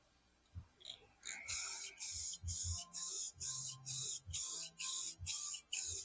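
Aerosol can of gold spray paint hissing in short, even bursts, about two a second, starting about a second and a half in, as the propeller is coated in quick passes.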